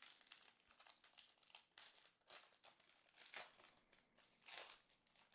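Foil wrapper of a Panini football trading-card pack crinkling and crackling as it is torn open by hand. It comes as a run of faint crackles, the loudest about two, three and a half and four and a half seconds in.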